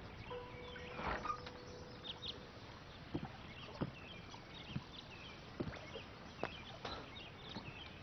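Birds chirping, with scattered soft clops and knocks from a horse standing hitched to a wooden carriage.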